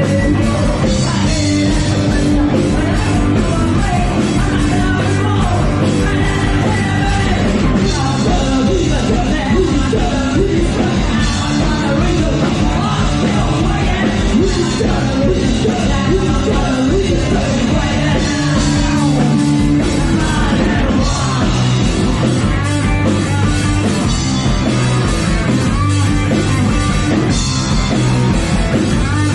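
Punk rock band playing live and loud, with a vocal sung over the band.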